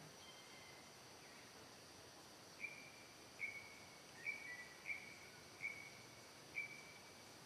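A bird calling, six short high whistled notes, each with a sharp start, about one every three-quarters of a second, over a faint steady hiss.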